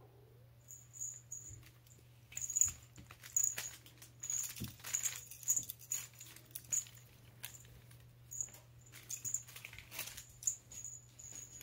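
Small bell on a cat teaser wand jingling in light, irregular shakes, with soft ticking and rustling.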